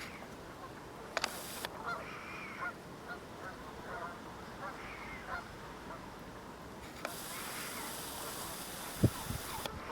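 A large flock of Canada geese honking, many overlapping calls with no pause. A hiss rises from about seven seconds in, and a single loud thump comes near the end.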